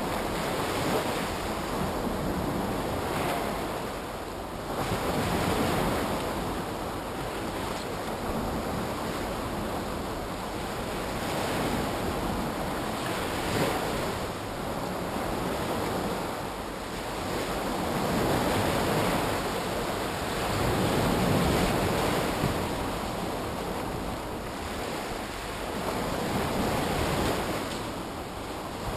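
Sea waves breaking and washing up the shore, the surf swelling and easing every few seconds.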